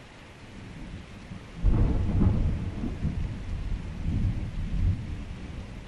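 Heavy rain hissing steadily; about a second and a half in, a sudden deep thunderclap breaks and rolls on with several swells for some three seconds before easing off.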